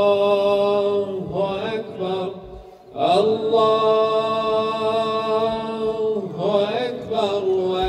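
Islamic funeral chanting by a male voice, drawing out long held notes with short melodic turns between them, and a brief pause about a third of the way in.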